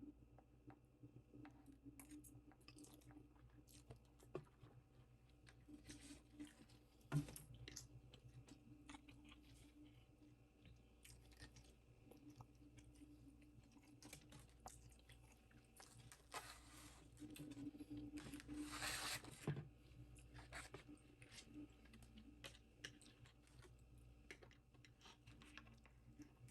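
A person eating, chewing and crunching food faintly, with many small scattered clicks and a louder, longer noisy stretch about two-thirds of the way in.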